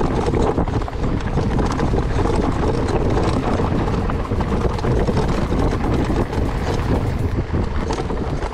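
Wind rushing over an action camera's microphone while riding an electric mountain bike, a steady loud rumble with a dense clatter of small knocks and rattles from the bike over rough trail.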